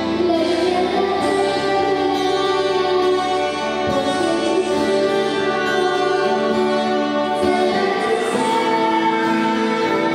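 A young girl singing a Polish church song into a handheld microphone over a steady instrumental backing.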